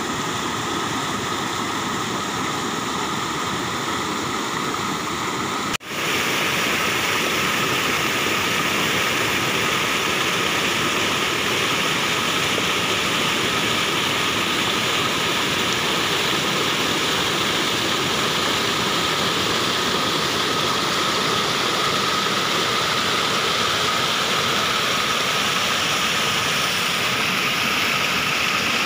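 Muddy floodwater pouring through the spillway notch of a stone masonry weir and rushing down the channel below: a loud, steady rush of falling water. It drops out briefly about six seconds in and comes back a little louder.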